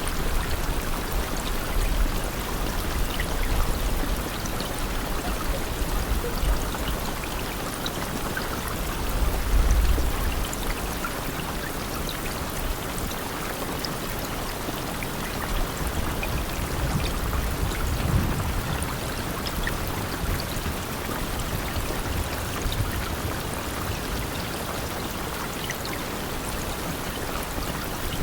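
Steady, heavy rain falling, a dense even hiss with scattered individual drops ticking through it. Low rumbles swell up a few times, the loudest about nine seconds in and another about eighteen seconds in.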